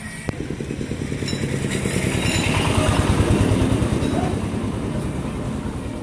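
A motor vehicle's engine passing by: its rapid low pulsing grows louder until about three seconds in, then fades.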